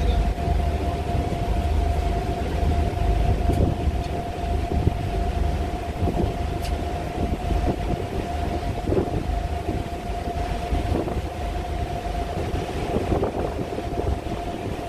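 Ferry engine running steadily: a low rumble with a constant droning tone above it.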